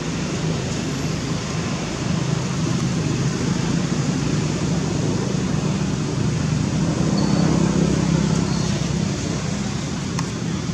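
Steady low rumble with a constant hiss of outdoor background noise, swelling slightly in the middle.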